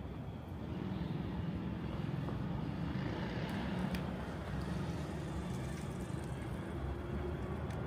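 Street traffic: vehicle engines and tyre noise, a little louder from about a second in.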